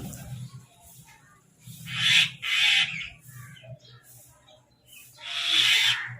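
Crows cawing: two loud harsh caws back to back about two seconds in and another longer caw near the end, with fainter short bird calls in between.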